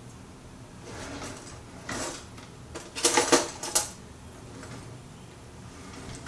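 Metal cutlery and dishes clinking and clattering: a short clatter about two seconds in, then a louder run of rapid clinks about a second later.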